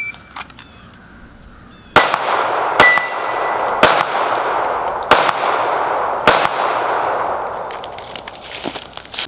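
Five 9mm pistol shots from a SIG P320, roughly one a second, starting about two seconds in. The first two are followed by a ringing metallic tone, like steel targets being hit.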